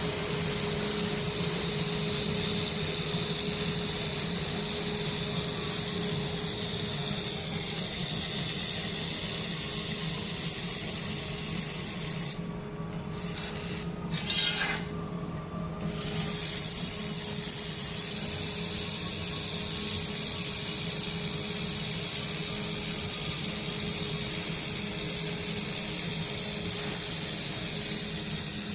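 Air-cooled handheld laser welder in use: a steady, scratchy hissing sizzle of the weld and its gas flow, which stops for a few seconds midway and then starts again, over the steady hum of the machine.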